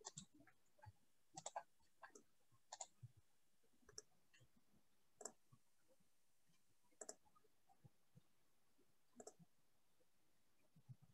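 Near silence broken by faint, irregular clicks, about one every second or so.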